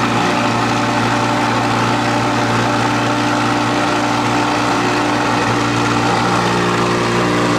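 Audi R8's naturally aspirated V10 idling steadily through a freshly fitted titanium valved aftermarket exhaust.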